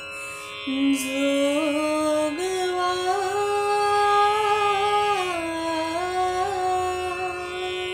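Marathi devotional jogwa song: a single voice holds long, ornamented notes over a steady drone, stepping up about two seconds in and sliding back down around five seconds in.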